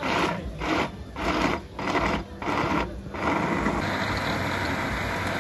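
Electric countertop blender chopping watermelon and pineapple chunks. It runs in short bursts about twice a second, then settles into a steady run from about three seconds in as the fruit turns to juice.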